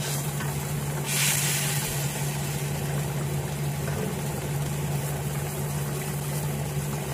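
Sauce simmering in a wok around fried tofu pockets as they are turned with a wooden spatula, with a brief hiss about a second in, over a steady low machine hum.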